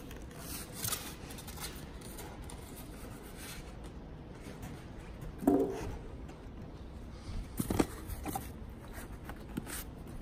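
Handling noises of packing being unpacked: a styrofoam tray holding a radio controller and a cardboard box lifted out of a foam-lined hard case, giving a few short scrapes and knocks, the loudest a brief squeak about halfway through.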